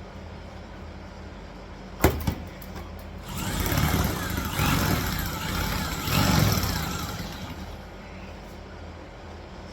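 Sheet metal being handled: a sharp metallic knock about two seconds in, then about four seconds of loud rattling and scraping with a wavering ring, over a steady low hum.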